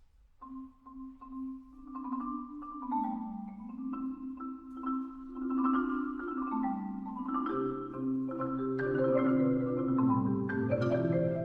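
Background music: a melody of struck, pitched notes, with a lower line joining about two-thirds of the way in and the music growing fuller and louder.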